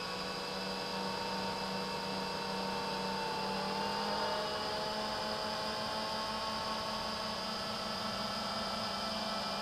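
FPV quadcopter's electric motors and propellers whining steadily in flight, several tones drifting slowly up and down in pitch over a steady hum.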